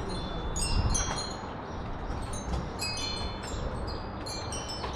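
Wind chimes tinkling, several high ringing notes at different pitches struck irregularly and overlapping, over a steady low background noise.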